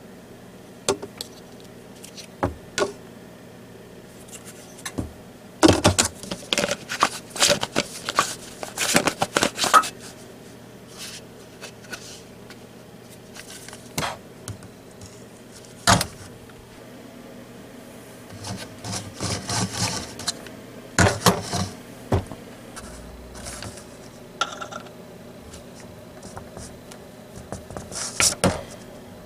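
Hands working with small parts and tools: irregular clicks, knocks and rattling, in dense clattering runs a few times, over a faint steady hum.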